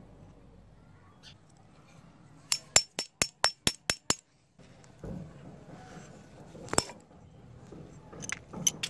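A small hammer tapping metal on the saw's rusted steel shaft and spring assembly. It gives about eight quick metallic clinks at roughly five a second, then a single sharp tap about four seconds later and a few more near the end.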